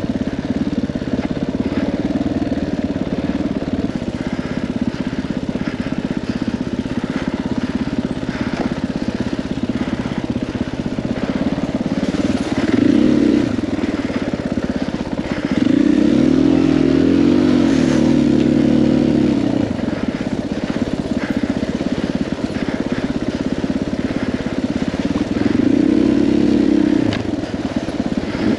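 KTM 500 EXC-F's single-cylinder four-stroke engine running steadily under way, with three rises in revs: a short one about twelve seconds in, a longer one a few seconds later, and another near the end.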